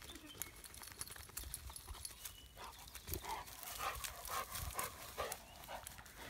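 Paws and footsteps rustling and crackling through dry grass and twigs as a Rottweiler walks, with a person following on foot; short, irregular crackles throughout.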